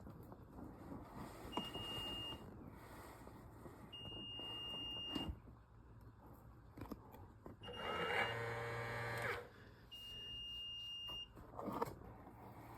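Aiper robotic pool cleaner making a strange sound while charging: a high beep of about a second, repeating every two to three seconds, with a buzz lasting about a second and a half around the middle and a sharp click just before it.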